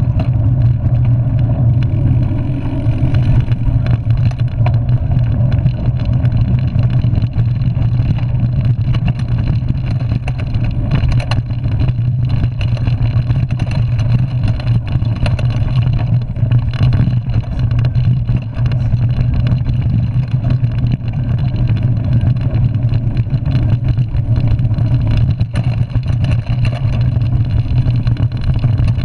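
Mountain bike riding heard through a handlebar-mounted camera: a loud, steady low rumble of tyres on a dirt trail and wind on the camera, with scattered small clicks and rattles from the bike.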